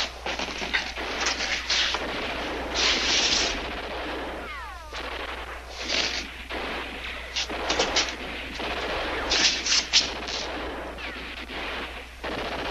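Gunfire: many rifle and machine-gun shots at irregular intervals, with a falling ricochet whine about four and a half seconds in.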